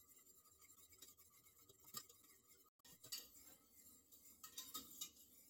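Faint, scattered clinks of a wire whisk against a stainless steel saucepan as a cream sauce is stirred, a few light ticks over near silence.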